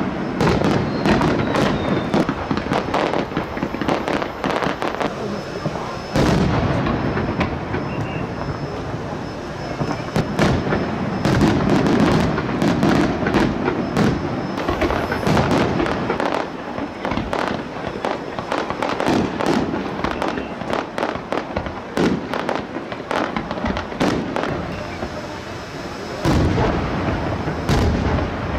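Aerial fireworks shells bursting one after another: a dense, near-continuous run of sharp bangs and crackling, with a few bigger booms standing out.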